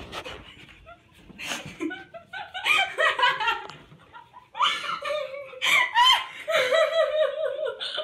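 People laughing hard in quick, repeated bursts, faint at first and loud from about two and a half seconds in.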